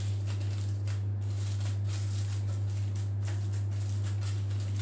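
Aluminium foil crinkling and rustling in short, irregular handfuls as it is pressed and folded down around the edges of a square baking frame, over a steady low hum.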